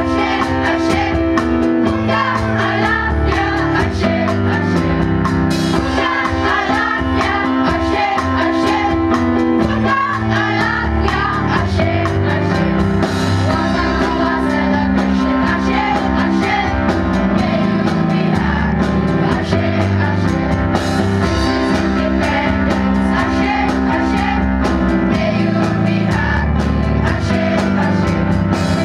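Music: a song with singing over instrumental backing, running steadily.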